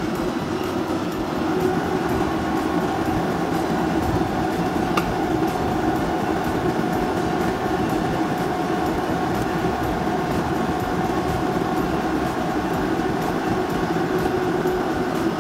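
Steel rollers of a rubber-sheet roll machine running with a steady mechanical drone and hum, as a red rubber sheet feeds through. A brief click sounds about five seconds in.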